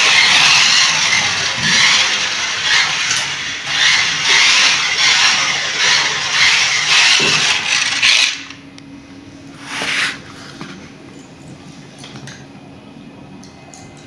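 Remote-control toy race car's electric motor whirring loudly as it is driven in surges across a hard floor, cutting out a little over eight seconds in. A short burst of whirring comes about two seconds later, then only a faint steady hum.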